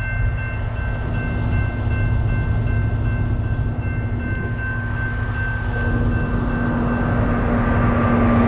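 Freight train rolling past a grade crossing: a steady, dense low rumble of wheels on rail, with the crossing signal bell ringing over it. Near the end a falling tone swells slightly louder.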